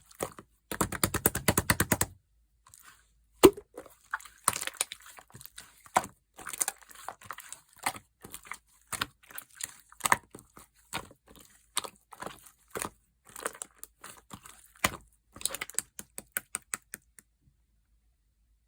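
Clear slime being squished and pressed in the hands, giving sharp crackling pops and clicks. A fast run of clicks comes about a second in, then scattered pops, and the sound stops shortly before the end.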